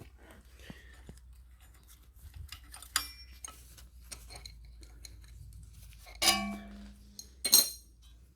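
Hand tools and metal tractor parts clinking and clanking as they are handled: scattered small clicks, a sharp clink about three seconds in, and two loud clanks near the end, the first ringing on briefly.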